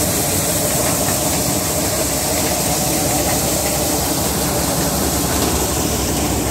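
Maize sheller driven from a tractor running steadily: the tractor's diesel engine and the sheller's threshing drum make one continuous, loud mechanical noise while shelled kernels pour out.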